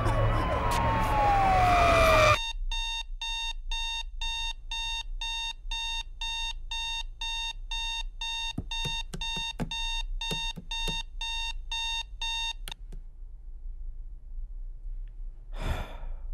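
A loud rushing noise with a falling, siren-like wail cuts off abruptly about two seconds in. A digital alarm clock then beeps in a fast, steady run of shrill beeps, about three a second, for some ten seconds before it stops. Near the end comes a single soft knock.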